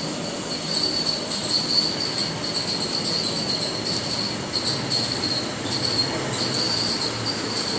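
Turmeric pulverizer machine running: a steady mechanical din with a high-pitched whine that wavers in strength.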